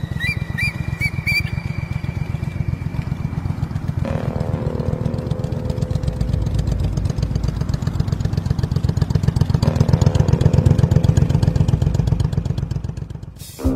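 Motorcycle engine running with a rapid, even beat, growing louder toward about ten seconds in, then fading. A short, sharp burst of noise comes just before the end.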